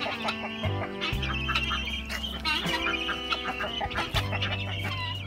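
Chickens and guinea fowl clucking and calling in busy, overlapping bursts, over guitar background music.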